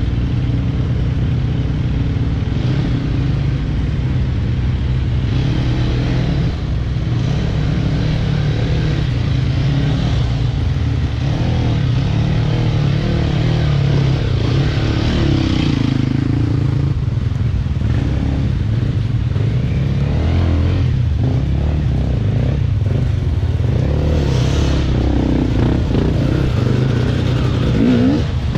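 Dirt-bike engines idling steadily, with a couple of short revs, about halfway through and near the end, as a bike picks its way over rocks.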